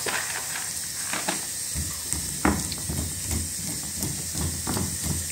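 Fried peanuts dropped into a stone mortar, then a stone pestle crushing and grinding them: knocks at about two or three strokes a second starting about two seconds in, one of them sharper. This is the peanuts being crushed for peanut sauce.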